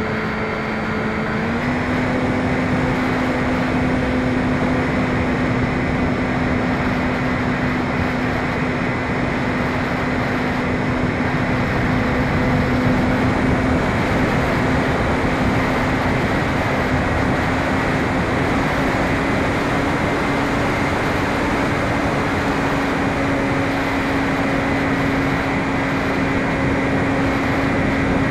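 Electric motor and propeller of a Phoenix 2400 RC motor-glider running steadily, a constant hum with a rush of air over it. The pitch steps up slightly about a second and a half in, and again a little over halfway through, as the throttle is nudged.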